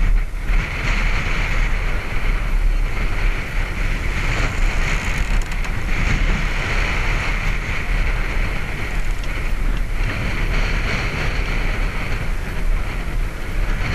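Wind buffeting the microphone over the steady rush of water past a moving catamaran's hulls and wake.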